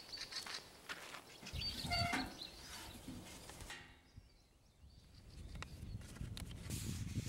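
Outdoor nature ambience with birds chirping, and one louder animal call about two seconds in.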